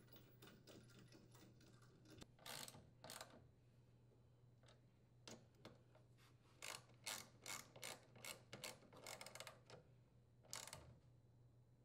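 Faint clicking of a ratchet with a 10 mm socket turning in the mounting bolts of a washing machine's direct-drive motor stator. A few clicks come a little past two seconds in, a quick run of clicks from about seven to ten seconds in, and one more near the end.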